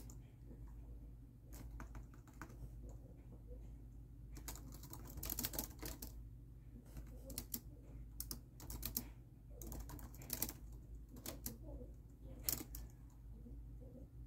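Typing on a laptop keyboard: irregular runs of keystroke clicks broken by short pauses, over a steady low hum.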